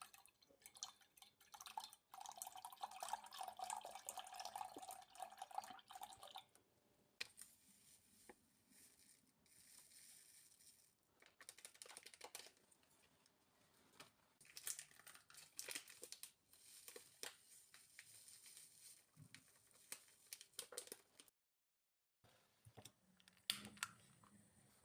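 Faint kitchen sounds from food preparation: a few seconds of running or pouring water, then scattered rustling, crinkling and light knocks.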